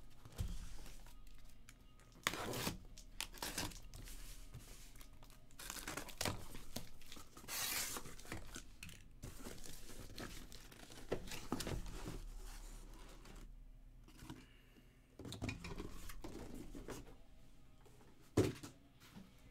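Cardboard shipping case being torn open by hand and its boxes pulled out: repeated tearing, rustling and scraping of cardboard with small clicks. A sharp knock near the end is the loudest sound.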